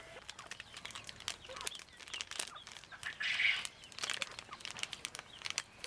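Plastic bag crinkling and rustling as white flour is shaken out of it into an aluminium bowl, with a denser burst of rustling about three seconds in.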